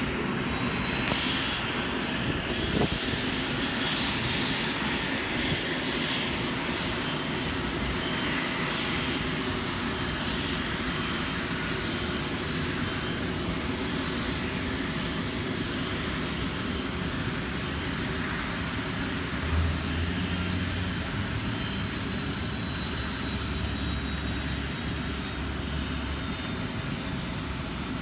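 Cessna Citation 525A CitationJet's twin Williams FJ44 turbofan engines running with a steady jet rush and a faint high whine. A low rumble joins about twenty seconds in.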